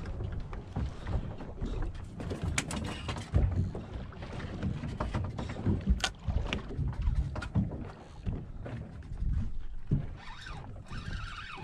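Wind buffeting the microphone and water sloshing against the hull of a drifting fishing boat, with a few sharp knocks about two and a half, three and a half and six seconds in.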